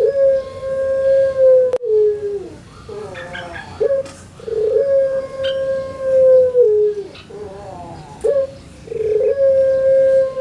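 Caged collared dove cooing a long, melodious coo, repeated about every four seconds: each call a short note, then a long steady tone held about two seconds that steps down in pitch at the end. The tail of one coo opens, and two full coos follow.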